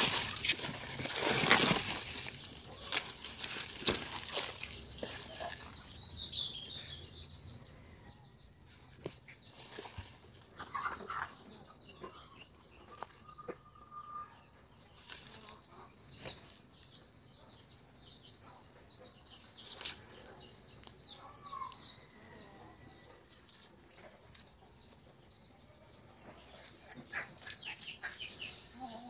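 A few loud rustling crunches at the start, then quiet rural outdoor ambience with a steady high trill and occasional short bird calls.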